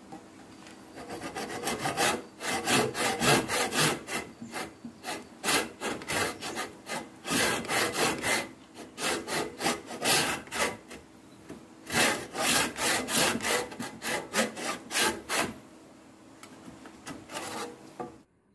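Crosscut hand saw cutting through wood in steady back-and-forth strokes, about two a second, with a short pause about two-thirds of the way through and lighter strokes near the end.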